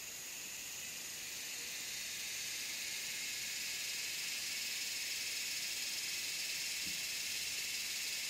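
Steady high-pitched drone of an insect chorus in tropical swamp forest, growing slightly louder, with a faint low bump about seven seconds in.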